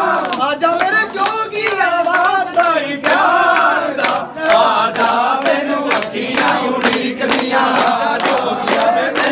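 A group of men singing a Punjabi devotional bhajan together. From about four seconds in, steady hand claps keep time, roughly two to three a second.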